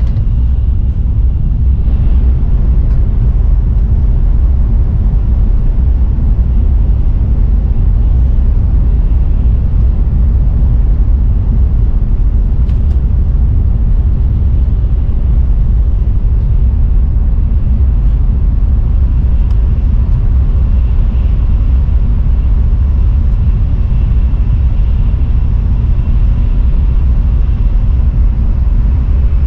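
Shinkansen bullet train running at speed, heard from inside the passenger cabin, for much of it through a tunnel. A loud, steady low rumble and rush of running and air noise.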